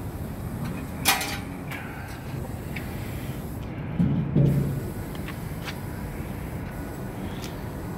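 A single sharp metallic clank with a short ring about a second in, from the steel roofing kettle being handled, and two short low thumps about four seconds in, over a steady background hiss.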